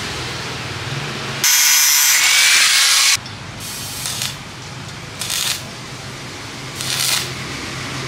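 An angle grinder runs, then grinds against metal with a loud hiss for under two seconds. After that, a stick welder's arc strikes three short crackling bursts of tack welding over a low steady hum.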